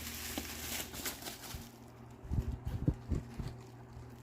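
Packaging rustling as hands dig through a box, then a quick run of soft, dull knocks of items being handled and set down.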